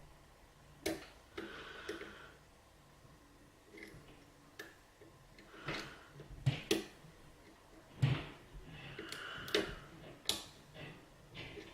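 Lock pick and tension wrench working the pins of a six-pin key-in-knob lock cylinder: irregular small clicks and ticks, with a few short scraping sounds from the pick, as he tries to pick it open.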